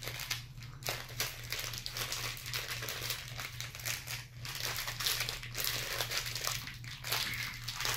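Small triangular snack wrappers crinkling and rustling unevenly as two people pick them open by hand, with a steady low hum underneath.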